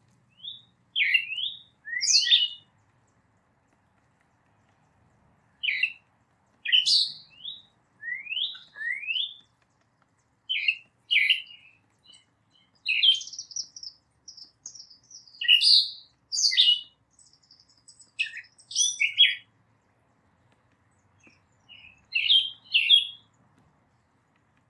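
Songbird calls: bursts of quick sweeping chirps and a few thin whistled notes, coming in clusters every few seconds with silent gaps between them.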